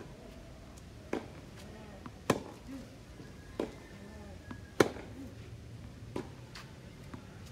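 Tennis rally on an outdoor hard court: rackets striking the ball with a sharp pop about every one and a quarter seconds, every other hit louder than the one before it as the ball goes back and forth between the two players. Fainter ball bounces on the court fall between the hits.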